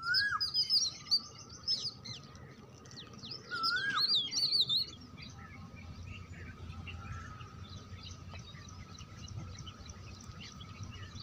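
Birds chirping: two quick bouts of high, sweeping chirps in the first five seconds, then only faint scattered chirps.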